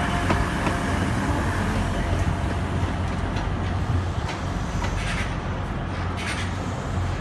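Class 180 diesel multiple unit running at low speed, its underfloor diesel engines giving a steady low rumble. A few light clicks come in the second half.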